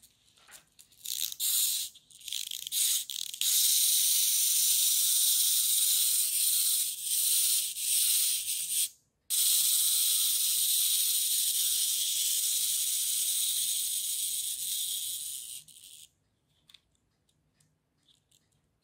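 Small wind-up clockwork motor in a toy elephant kit whirring as it runs with the toy held in the hand. It comes in short bursts at first, then runs steadily, cuts out for a moment about nine seconds in, and runs again before fading a little and stopping a few seconds before the end.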